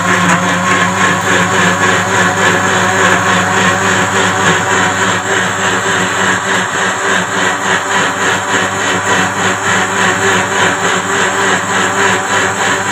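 Electric countertop blender running steadily at full speed, its motor whirring as the blades churn a jug of bananas, milk and sugar.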